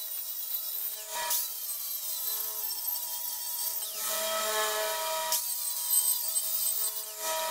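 DeWalt angle grinder cutting relief cuts into a steel plate, its disc running with a steady whine and hiss of metal being cut.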